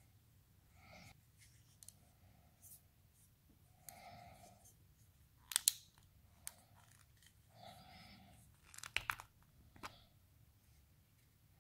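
Handling noise from a small plastic-and-metal hair trimmer being turned in the hands while its end cap is twisted and pulled off: faint rubbing and scraping with a few sharp clicks, the loudest about halfway through and again about three quarters of the way in.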